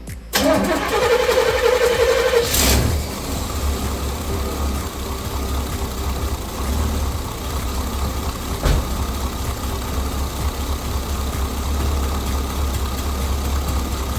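Chevrolet 454 big-block V8 cranked by the starter for about two seconds, catching and settling into a steady idle, started on the key alone without touching the gas pedal. It is running on a freshly fitted distributor cap and rotor that replaced a corroded cap and a burnt rotor.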